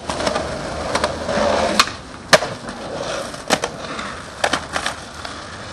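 Skateboard wheels rolling on concrete, with several sharp clacks of the board hitting the ground. The loudest clack comes about two and a half seconds in.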